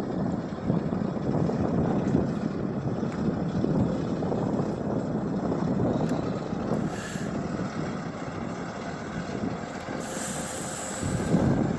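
Wind buffeting the microphone in uneven gusts, over the rush of highway truck traffic.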